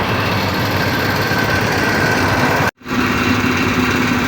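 Air compressor running steadily while it inflates a tyre. The sound drops out for an instant about three seconds in.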